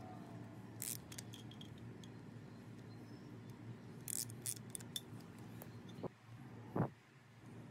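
Scattered small metallic clicks and clinks of a screwdriver working screws and handling the metal housing of an electric drill during reassembly. A duller knock near the end is the loudest sound.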